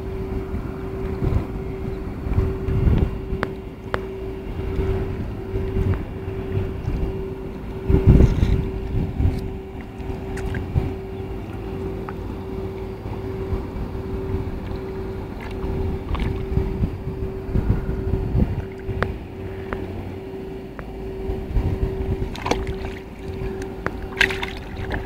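Wind and handling noise buffet the microphone over a steady hum, with scattered knocks and a heavy thump about eight seconds in. Near the end, water splashes as a large katla fish is hauled out of the water in a net.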